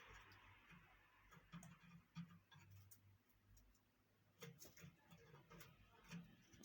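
Faint, irregular small clicks and taps from canaries moving about in their cage during a bath, with several a second at some moments and brief pauses at others.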